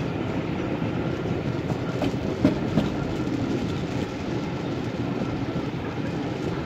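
Passenger train rolling along the track, heard from an open carriage window: steady wheel and rail noise, with two sharp clacks about two and a half seconds in as the wheels pass over the track.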